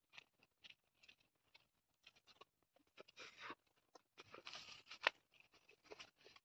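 Faint footsteps crunching on dry grass and soil, with scattered small clicks and rustles.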